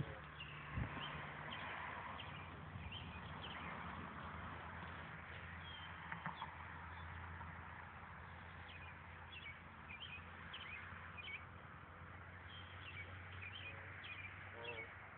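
Small birds chirping on and off, short high chirps scattered throughout, over a steady low hum.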